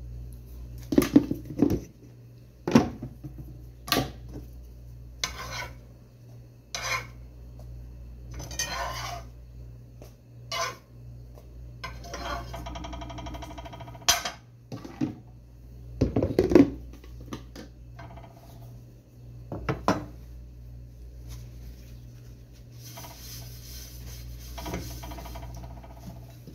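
Metal utensils clinking and knocking against a frying pan and a batter bowl, a dozen or so sharp knocks spread out with a stretch of scraping about halfway through, over a steady low hum.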